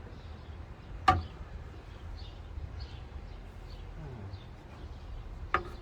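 Sharp click about a second in and another near the end, from the parts of an old desktop computer case being handled, over a low steady hum.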